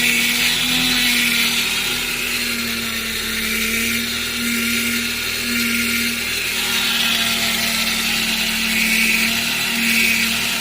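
Toyota Regius Ace power steering pump whining with the engine running, a steady whine that swells and fades several times. It is the abnormal power steering noise that comes up when the steering wheel is turned.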